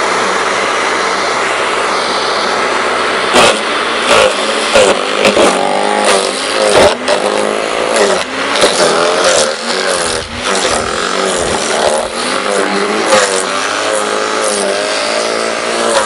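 Garden shredder's motor running steadily. From about three seconds in, a branch is fed through it: repeated sharp cracks and snaps of wood being chewed, and the motor's pitch wavers under the load.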